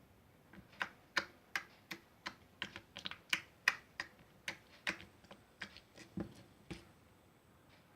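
Slime being squeezed and pressed, giving a quick series of sharp clicking pops at an uneven pace, about two to four a second, that stop about a second before the end.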